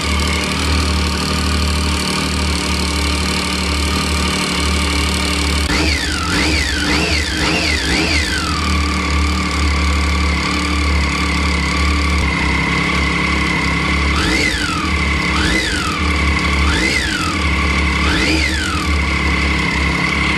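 Triumph Street Triple's inline three-cylinder engine idling, with a ticking that is likely from the timing chain and that tones down as the engine warms up. The throttle is blipped about five times in quick succession about six seconds in, and four more times later.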